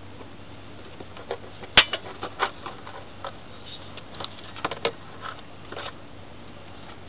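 Irregular clicks and light knocks of hands and tools working on the engine top, with the sharpest knock about two seconds in and a quick cluster near the middle; a faint steady hum underneath.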